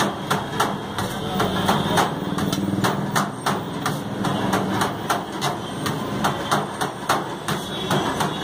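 Metal spatulas chopping shaved shawarma chicken on a steel tray: repeated metal-on-metal clacks, about two or three a second, over a steady low hum.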